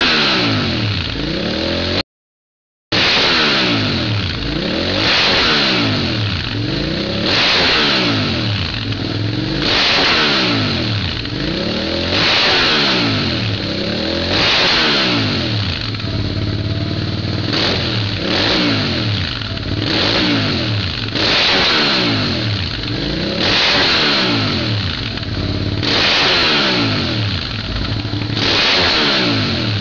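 Suzuki SV650's 645 cc V-twin revved again and again through a MIVV titanium GP 2-into-1 exhaust with the dB-killer baffle removed, each blip rising and falling in pitch, about one every two seconds. The sound cuts out completely for under a second about two seconds in.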